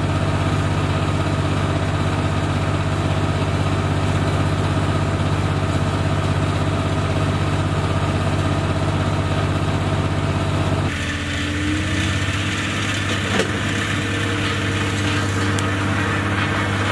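Skid steer engine running steadily, a low even hum that changes in tone suddenly about eleven seconds in.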